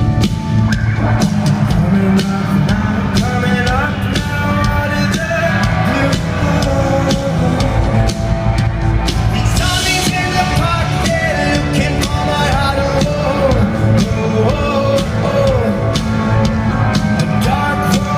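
A rock band playing live, with a lead singer over drum kit and guitars. A cymbal crash comes about halfway through.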